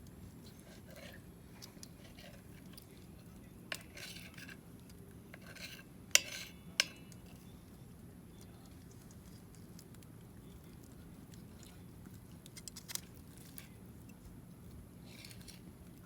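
Occasional light clinks and taps of metal cutlery and tableware, with two sharper clinks about six seconds in, over a low steady background noise.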